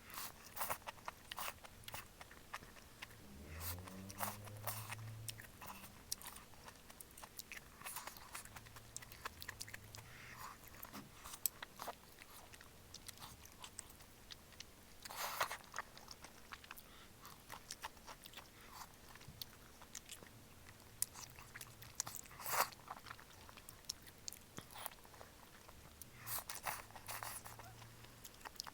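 Eating malatang: a steady run of chewing and biting, with many short crunches and clicks scattered throughout.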